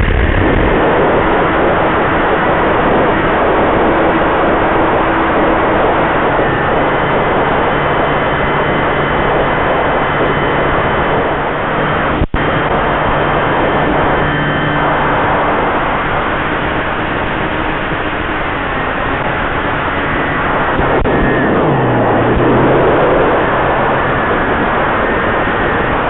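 Motor and pusher propeller of a home-built foam RC plane running in flight, heard through the FPV video link under heavy wind and hiss. The sound cuts out for an instant about twelve seconds in as the video signal breaks up, and the motor pitch drops and climbs back around twenty-one seconds in.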